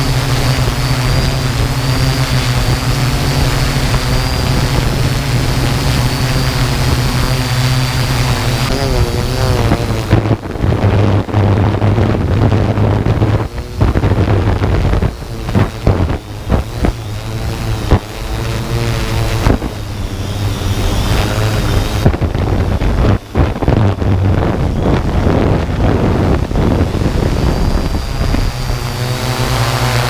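Motors and propellers of a 787 mm X8 coaxial multirotor drone whining steadily in flight, the pitch wavering as the motors change speed. From about ten seconds in, gusts of wind buffet the microphone and break up the sound for much of the time. The steady whine comes back clearly near the end.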